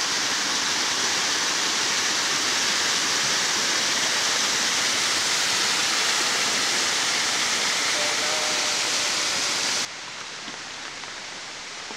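Waterfall pouring over a rock ledge into a pool: a steady rushing hiss of falling water. About ten seconds in it cuts abruptly to a quieter, duller rush of water.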